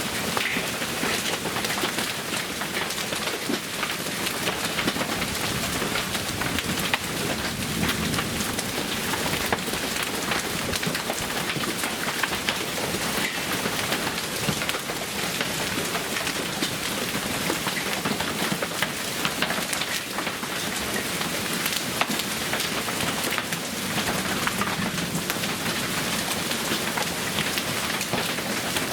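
Heavy storm downpour pelting surfaces steadily, with a dense patter of sharp individual impacts.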